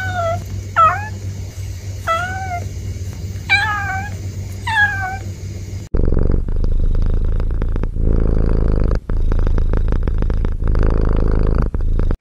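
A tabby kitten meows five times, short calls spread over about five seconds. Then a tabby cat, asleep, purrs loudly and steadily, with brief breaks.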